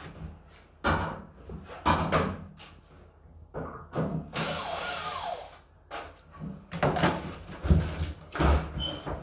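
Scattered knocks, clicks and clatter of things being handled, with a short rushing or scraping noise about four seconds in and a few heavier thuds near the end.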